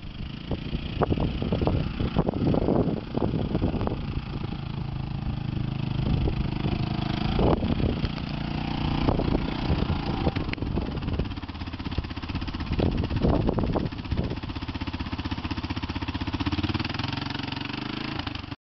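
Quad bike (four-wheel ATV) engine running steadily at low revs as it is ridden slowly over grass.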